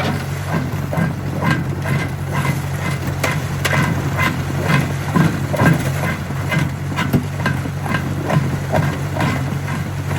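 Jaw crusher crushing stone: a steady engine drone under frequent irregular knocks and cracks of rock, about two or three a second.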